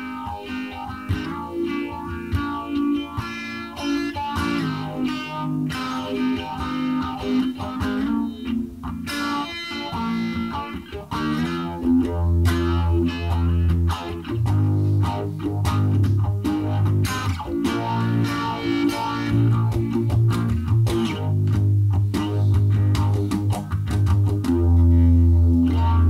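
Electric guitar music, an Ibanez Black Beauty played through effects with some distortion, over a bass part that grows much heavier about twelve seconds in.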